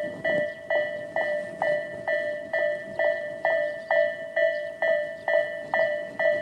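Tobu Railway level crossing's electronic warning bell (the 'Tobu sound A' alarm) ringing at about two dings a second, each a bright, sharply struck tone that decays quickly. This is the crossing signalling a train's approach or passage.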